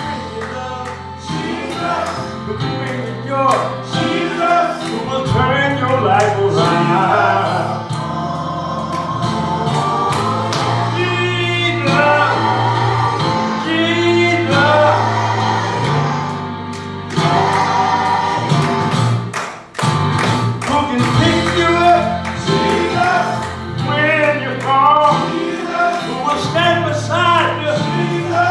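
Gospel song: singers with instrumental accompaniment, steady low bass notes and a beat of sharp percussive strokes.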